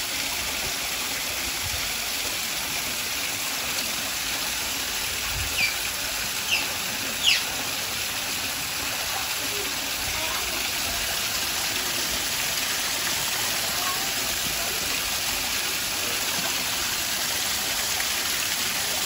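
Steady rushing and splashing of flowing pool water, with three short high-pitched squeaks falling in pitch from an Asian small-clawed otter about six to seven seconds in, the last one the loudest.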